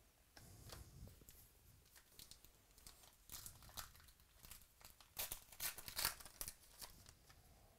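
Trading-card pack wrapper being torn open and crinkled by hand: a run of faint crackles, with the loudest crinkling about five to six seconds in.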